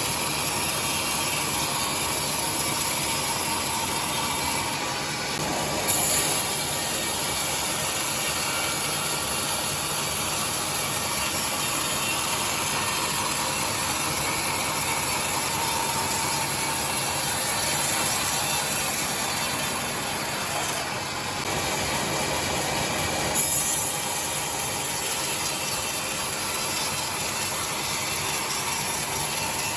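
Sawmill machinery running steadily with a continuous mechanical clatter, as boards are ripped. Twice it briefly quietens and then gives a sharp knock: about six seconds in and again about 23 seconds in.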